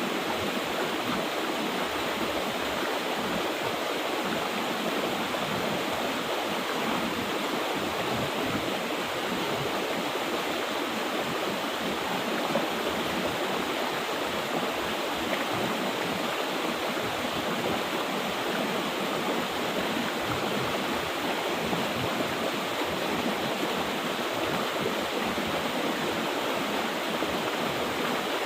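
Mountain river water rushing and splashing over rocks in a steady, even flow.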